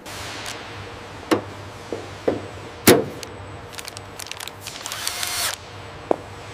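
Scattered sharp clicks and knocks over a steady low hum. The loudest knock comes about three seconds in, and a short run of rapid rattling clicks follows near five seconds.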